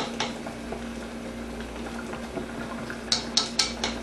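Sauce and vegetables simmering in a nonstick wok with a steady bubbling hiss, over a steady low hum. Chopsticks tap against the wok twice at the start, then click against it four or five times in quick succession near the end.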